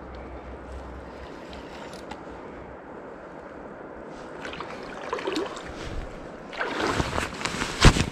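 Steady rush of flowing water at the river's edge, with scattered rustling and clicks building into loud rough handling noise in the last second and a half, and one sharp knock just before the end.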